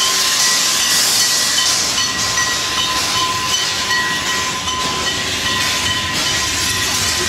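A narrow-gauge steam locomotive venting steam at close range: a loud, steady hiss with a faint high whine running through it.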